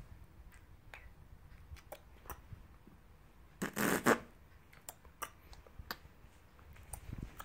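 Quiet scattered clicks and rustles of close handling, with one brief, louder noisy burst about three and a half seconds in as a man presses a kiss onto a baby's cheek.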